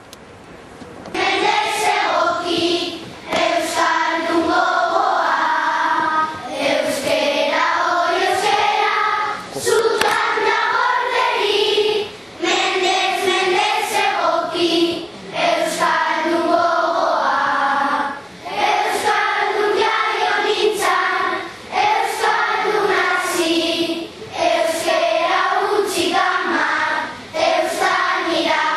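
Choir singing a song in Basque, in phrases separated by short breaks, starting about a second in.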